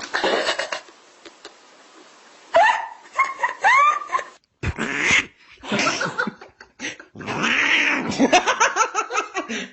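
A domestic cat meowing and yowling in a string of short, loud calls that rise and fall in pitch, broken by brief pauses.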